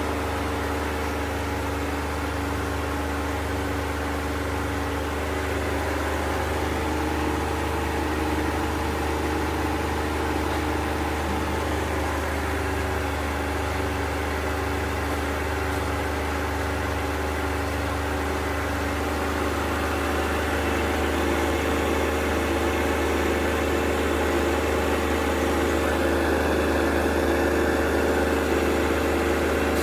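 ASKO W6564 washing machine in its high-speed spin, a steady low drone with a whine of steady tones above it, growing slightly louder in the second half.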